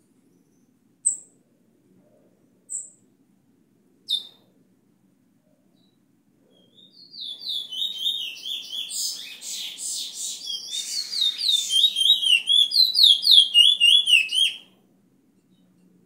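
Caged bullfinch teacher bird singing: three short sharp chirps about a second and a half apart, then a long run of quick, repeated whistled notes lasting about eight seconds and growing louder toward the end.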